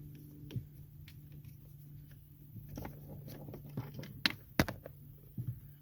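Scattered light clicks and taps of a hand tool and small bolts being worked under a car's steering column, a few sharper knocks a little after four seconds in, over a faint steady low hum.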